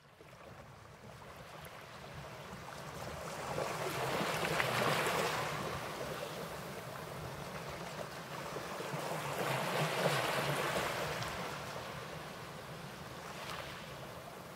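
Sea waves washing in, fading up from quiet and swelling twice, about five seconds apart.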